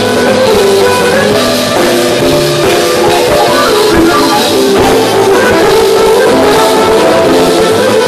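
Live band playing an instrumental passage: accordion and violin over electronic keyboard, electric guitar and drum kit.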